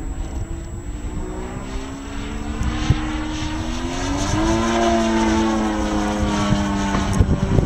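Radio-controlled Extreme Flight Edge 540T aerobatic model plane flying overhead, its propeller drone rising in pitch and getting louder about halfway through, then holding and easing down slightly near the end. Low wind rumble on the microphone underneath.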